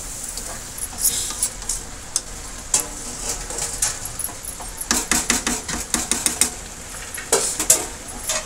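A spatula stirring grated carrots and sugar in an aluminium kadai, making irregular scrapes and knocks against the pan, with thicker clusters about five seconds and seven and a half seconds in.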